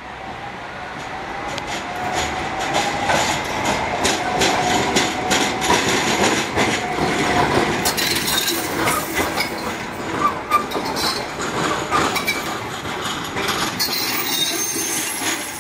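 Breda tram passing close, its steel wheels clicking over rail joints and points, with a faint wavering squeal of wheels on the curved track in the first half.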